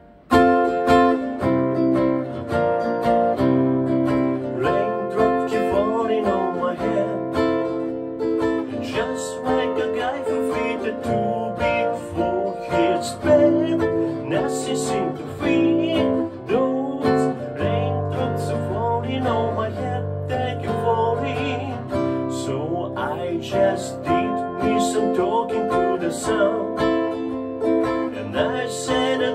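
Headway nylon-string electro-acoustic guitar strummed in chords, with a man's singing voice over it from about five seconds in.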